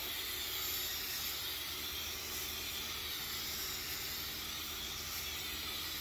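Aerosol can of rinseless coil cleaner spraying in a steady hiss onto the aluminium fins of an RV air conditioner's condenser coil.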